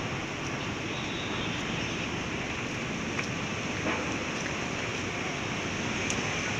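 Steady, even noise of busy city road traffic, with a couple of faint clicks about halfway through.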